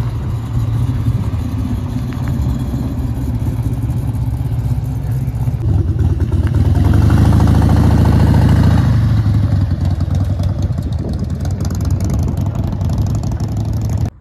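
A first-generation Chevrolet Camaro's engine running as the car pulls out, then a V-twin cruiser motorcycle riding past. The engine sound grows louder for a few seconds in the middle as the motorcycle passes close.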